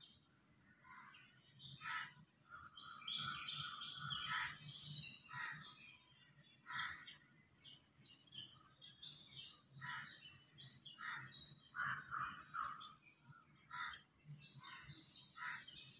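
Small birds chirping, with many short calls at irregular intervals that now and then overlap, over a faint low hum.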